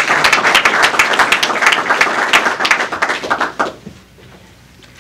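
A roomful of people applauding, thinning out and dying away about three and a half seconds in.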